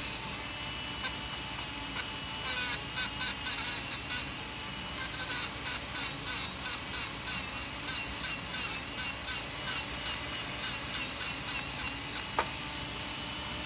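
Low-speed dental contra-angle handpiece spinning a Sof-Lex finishing disc with a steady high whine. For a stretch in the middle the disc rubs against the composite on an incisor, finishing and flattening the restoration's surface.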